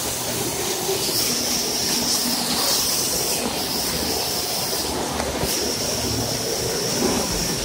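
Escaping steam from a leak: a steady rushing hiss with a thin, high whistle that drops out briefly twice.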